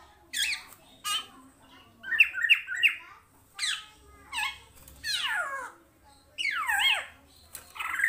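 Caged kepodang timur, an oriole, calling over and over: loud, harsh whistled calls about once a second. Several of them slide steeply down in pitch, and one near the start of the series is a quick run of three notes.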